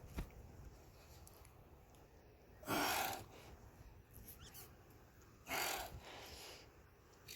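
Two heavy breaths of effort, about three seconds apart, each a short forceful exhale, from a man straining to work a worn leaf-spring bushing out under a clamp.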